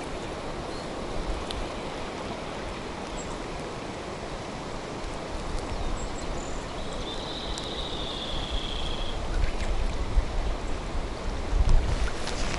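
Steady rush of a fast-flowing, swollen river, with low rumbling on the microphone that grows louder near the end. A brief high-pitched sound is heard about seven seconds in.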